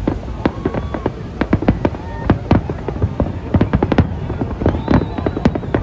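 Aerial fireworks bursting in rapid succession: a dense, continuous string of bangs and crackles with no let-up.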